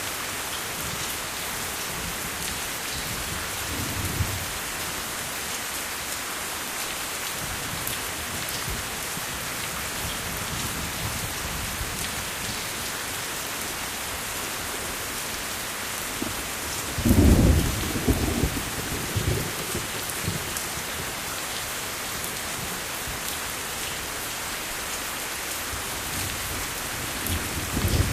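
Steady rain hissing, with thunder rumbling in low: a faint rumble about four seconds in, a loud rumble about seventeen seconds in that rolls on for a few seconds, and another beginning near the end.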